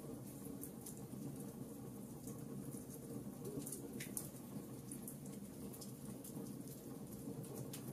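Wood fire burning in a fireplace: a steady low rumble of flames with frequent small, sharp crackles and pops from the burning logs at irregular moments.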